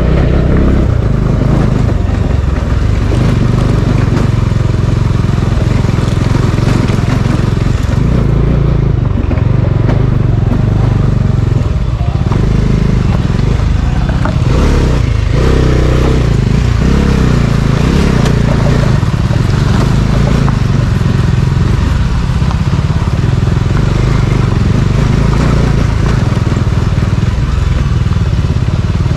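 Motor vehicle engine running steadily while driving over a rough, rocky off-road track, under a heavy low rumble that does not let up.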